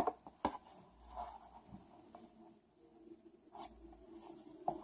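Faint handling sounds: a few light clicks and soft scratchy rustling, like a small plastic object being handled and set down.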